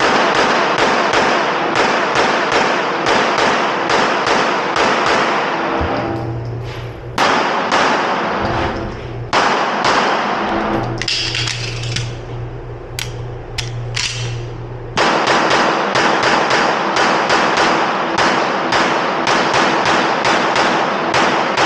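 Background music with a fast, steady beat, thinning out in the middle and coming back in full about fifteen seconds in.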